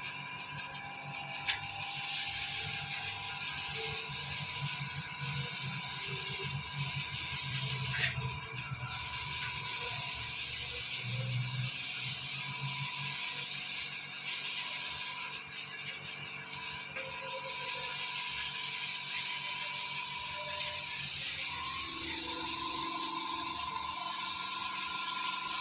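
Compressed-air gravity-feed spray gun hissing steadily as it sprays paint, cutting out briefly three times when the trigger is let go.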